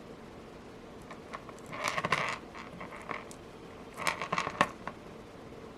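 Small metal pieces clinking and rattling against each other and a work surface as jewelry pliers and metal beads are handled, in two short clusters of clinks about two seconds apart.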